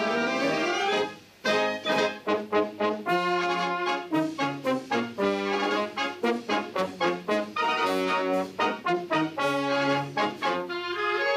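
Naval brass band playing: trumpets and tubas over bass drum and cymbals. It opens with a rising run, breaks off briefly about a second in, then goes on in short, punchy notes.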